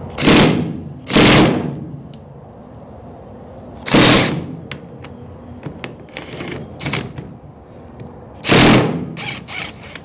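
Cordless DeWalt impact driver run in four short bursts, each about half a second, as it undoes bolts on a diesel vacuum pump's housing. Light clinks of metal parts sound between the bursts.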